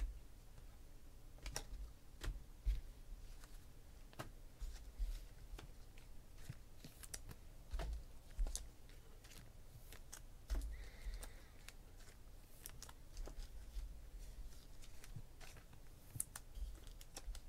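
Stiff chromium trading cards being handled, flipped and squared into a stack: irregular light clicks and taps, with a few dull bumps as the stack meets the table.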